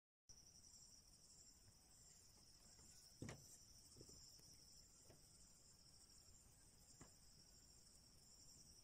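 Faint, steady, high-pitched chirring of insects. A few soft knocks fall about three, four, five and seven seconds in; the one at about three seconds is the loudest.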